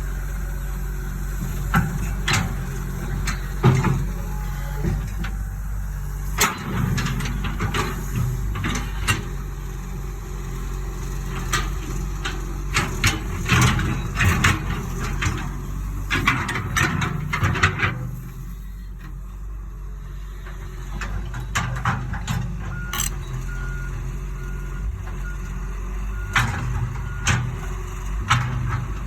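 Cat 315 LC excavator's diesel engine running steadily as it works, with scattered sharp knocks and clatter. About three-quarters of the way through, its warning alarm starts a steady series of short beeps that carries on to the end.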